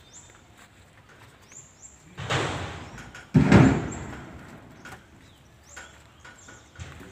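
Heavy teak logs being handled and loaded onto a truck by hand: a knock about two seconds in, then a heavy wooden thud about a second later.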